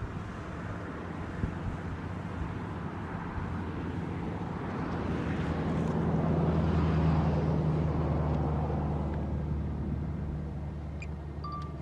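A road vehicle passing by. Its engine hum and tyre noise build to a peak about seven seconds in, then fade away.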